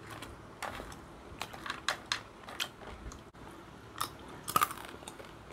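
Crispy fried dried anchovies (dilis) being bitten and chewed, an irregular run of crunches with a loudest cluster about four and a half seconds in.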